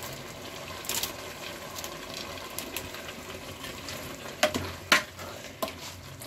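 Metal spoon stirring thick, moist bottle gourd halwa in a large metal pot over a steady low sizzle of the cooking mixture. The spoon knocks and scrapes against the pot, once about a second in and then three times in quick succession a little before the end, the loudest sounds here.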